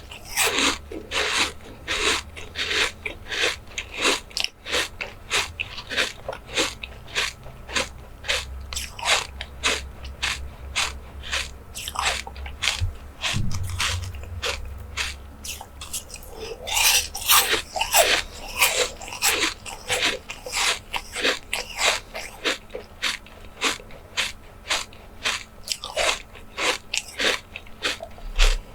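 Close-miked eating sounds: a person chewing and biting food, making a fast, uneven run of crisp crunching clicks, a few a second, that thickens briefly about two-thirds of the way through.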